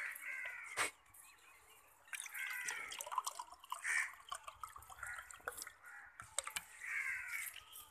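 A flock of domestic pigeons pecking grain off a hard yard floor: many quick, light clicking taps. A few short bird chirps come in now and then.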